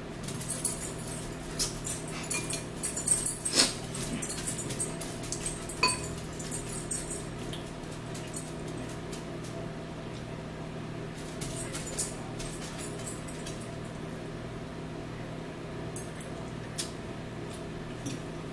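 Close-up eating sounds: noodles slurped and chewed, with metal forks clicking and scraping against bowls, one clink ringing briefly. The clicks come thickest in the first several seconds, then in a few short clusters, over a steady low hum.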